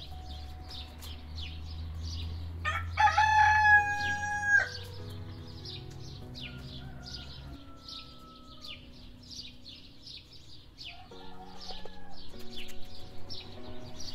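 A rooster crows once about three seconds in, a loud held call lasting about two seconds that ends abruptly. Quick high bird chirps repeat throughout.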